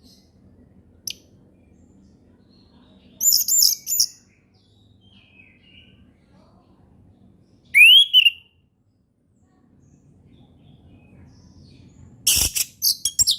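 Orange-headed thrush singing in three short bursts of high, rapid phrases several seconds apart, one opening with a quick upward sweep. A sharp knock comes in the last burst near the end.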